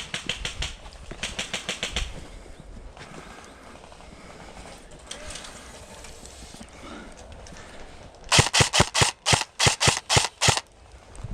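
Airsoft guns firing: two quick, fainter bursts in the first two seconds, then about eight seconds in a loud string of about a dozen sharp shots, roughly five a second, for about two seconds.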